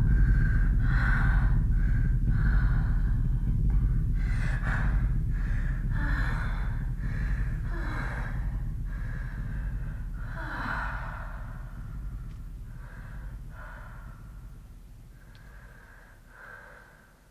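A person breathing hard in a run of short, quick breaths, over a low steady drone; both slowly fade out toward the end.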